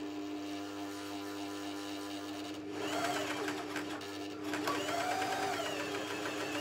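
Juki MCS-1500N coverstitch machine running as it sews its first test stitches. It starts abruptly as the foot pedal is pressed, with a steady hum, and gets louder about three seconds in. The running is nice and quiet.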